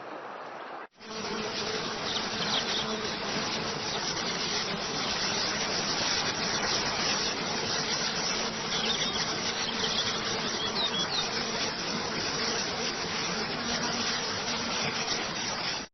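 Steady rushing of a waterfall, beginning suddenly about a second in after a brief drop-out and then running on evenly, with a faint steady hum in it.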